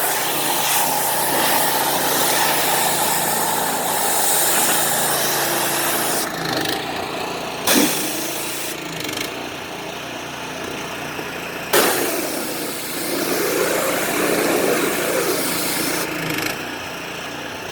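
Gas pressure washer running steadily, its engine humming under the hiss of the high-pressure water spray. Two short sharp knocks break in, about eight and twelve seconds in.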